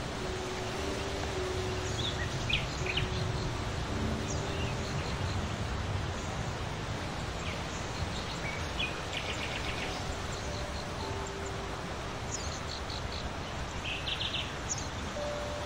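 Small birds chirping over a steady outdoor noise bed: scattered short high chirps, with two brief rapid trills of repeated notes, one about nine seconds in and one near the end. A faint melody of held notes sounds under it in places.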